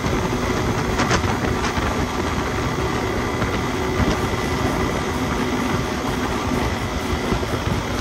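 Motorcycle cruising at motorway speed: a steady rush of wind over the microphone, mixed with engine and road noise.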